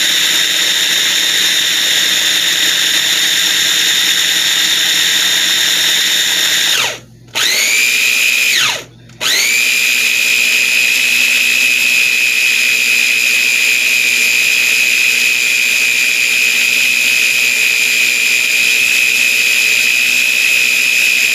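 Electric food processor motor running with a steady high whine as it blends garlic sauce. It cuts out about seven seconds in, gives one short spin that rises and falls, then runs steadily again at a lower pitch.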